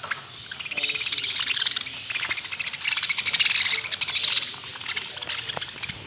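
A flock of caged budgerigars chattering: a dense, continuous high twittering of rapid trilled notes from many birds at once.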